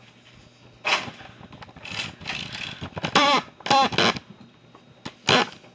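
Rustling and knocking as a phone camera is handled and swung about, with two short, wavering, high-pitched vocal sounds about three seconds in and a sharp knock near the end.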